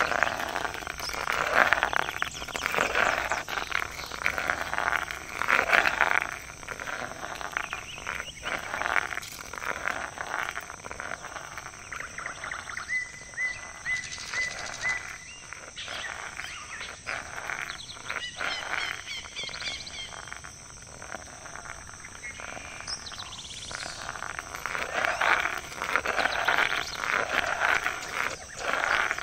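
A dense chorus of rapidly pulsing animal calls, swelling and fading in waves. It is quieter through the middle, where a short row of high pips sounds about halfway through.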